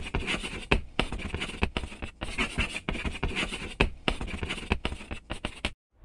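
Writing sound: a writing tool scratching across a surface in quick strokes, in runs broken by short pauses, stopping suddenly near the end.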